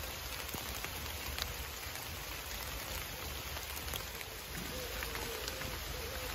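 Steady rain falling on wet leaves and grass: an even hiss with scattered drop ticks. A faint wavering tone comes in about two-thirds of the way through.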